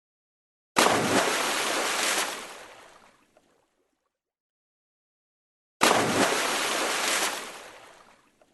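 Water splash sound effect played twice: each time a sudden splash followed by a rushing wash of water that fades away over a couple of seconds, with silence between the two.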